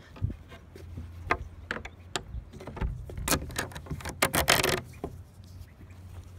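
Scattered clicks and knocks of objects being handled, with a louder scraping rustle for about half a second around four seconds in, over a faint steady low hum.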